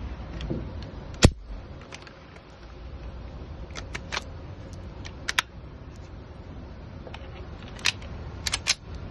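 Sharp plastic-and-metal clicks and snaps of a Smith & Wesson M&P Shield pistol being fitted into a CAA MCK micro conversion kit chassis and the kit's parts being worked. The clicks come in scattered pairs over steady background noise. About a second in there is a single much louder sharp crack.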